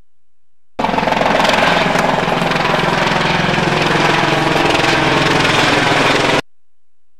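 Helicopter engine and rotor running steadily with a fast pulsing beat, loud; it starts abruptly about a second in and cuts off suddenly near the end.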